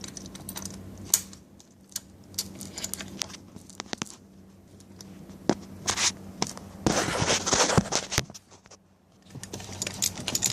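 Small clicks and scrapes of a bicycle quick-release seat clamp being handled and fitted, its metal parts tapping and rubbing as the skewer goes through the clamp and its nut is brought on. There is a denser stretch of scraping about seven seconds in.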